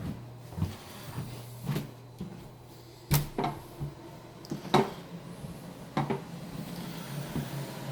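Footsteps, then a door being opened and closed: three sharp knocks and clunks about three, five and six seconds in.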